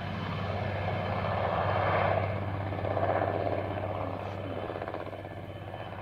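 Military helicopter in flight, its main rotor beating in a steady chop with engine noise. It grows louder about two and three seconds in, then fades toward the end.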